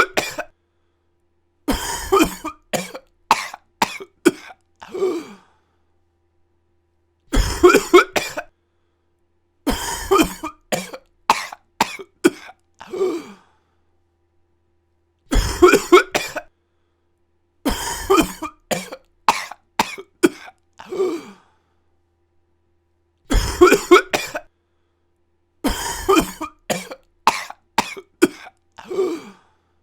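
A person coughing in repeated fits. A single hard cough is followed a couple of seconds later by a run of four to six coughs, the last one trailing off lower in pitch. The pattern recurs about every eight seconds with dead silence between the fits.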